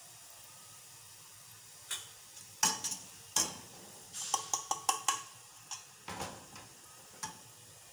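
Kitchen utensils and cookware clinking and knocking in an irregular string, a few strikes ringing briefly, over a faint steady sizzle of the garlic tadka frying in oil and butter.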